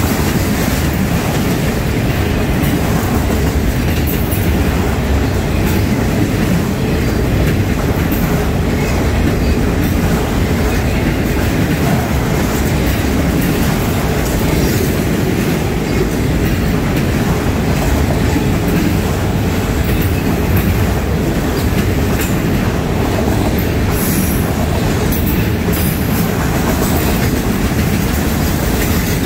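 Freight train of autorack cars rolling past close by: a steady, loud rumble of steel wheels on the rails, with scattered light clicks.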